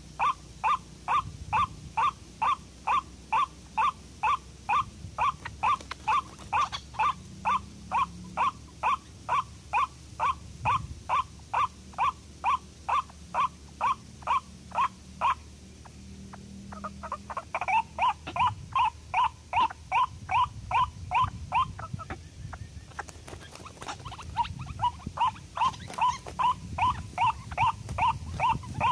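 White-breasted waterhen (ruak-ruak) calling: a loud, harsh note repeated over and over, about two to three times a second. The run breaks off twice, briefly past the middle and again a little later, before it resumes.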